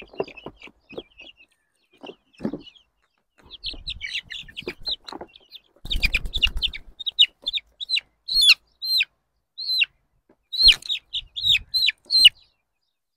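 A four-week-old chick held in the hand, peeping over and over in short, high calls that drop in pitch at the end. About six seconds in there is a brief flurry of wing-flapping.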